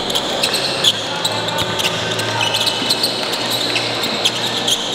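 Basketball game sounds on a hardwood court: a ball bouncing, many short sneaker squeaks, and the chatter of people in the hall.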